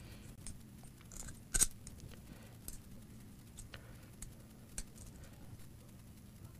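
Small screws and a metal CPU water-block mounting plate being handled: scattered light clicks and ticks, the loudest about one and a half seconds in.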